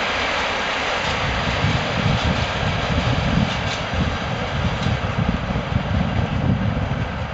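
Freight train wagons rolling steadily past: a continuous rush of wheel and rail noise, with irregular low rumbling from about a second and a half in.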